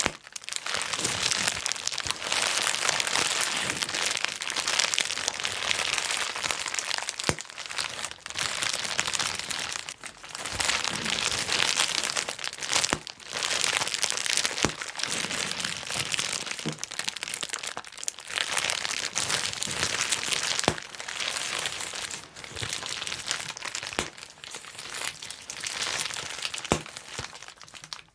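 Plastic bubble wrap being popped: a constant crinkling of plastic punctuated by many sharp, irregular pops, with a few brief lulls.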